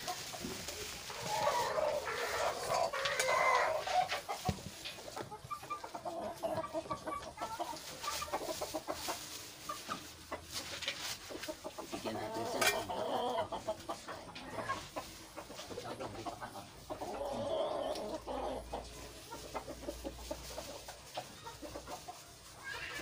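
Domestic chickens clucking as they are fed pellets, in bouts of calls that come and go, loudest near the start and again around the middle.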